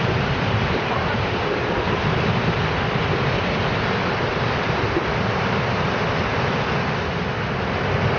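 Steady roar of Iguazu Falls, the rush of a huge volume of falling water.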